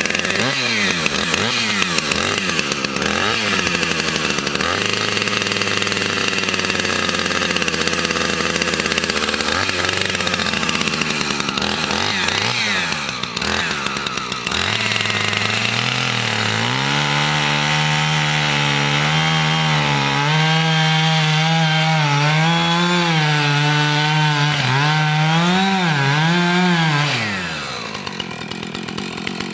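Gas chainsaw cutting into a cherry tree trunk, its engine note sagging under load and recovering again and again as the chain works through the wood. It falls back toward idle near the end.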